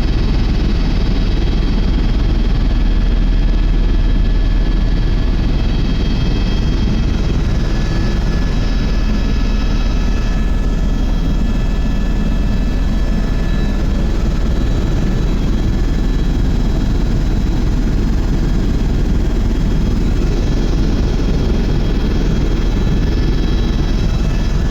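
Helicopter in flight, heard from inside the cabin: a loud, steady drone of rotor and engine with several high steady whine tones over it.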